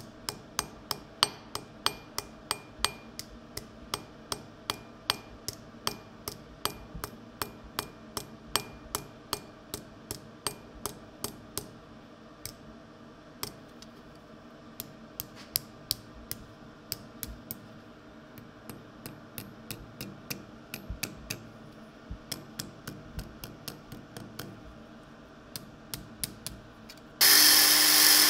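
Light hammer blows on a thin strip of hot metal laid over the edge of an anvil, with a short ring after each strike: about two a second at first, then sparser and uneven. About a second before the end an angle grinder starts suddenly and runs loudly.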